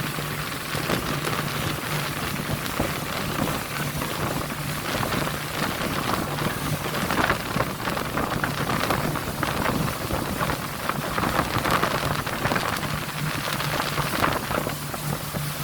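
Sea surf washing and breaking, a continuous rushing noise that swells now and then, with a steady low hum underneath that drops in and out.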